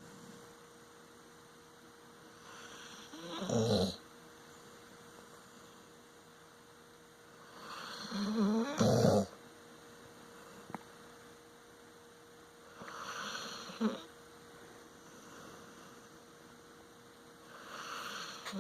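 Dog snoring in its sleep: four long, rough snores about five seconds apart, each building to a louder end.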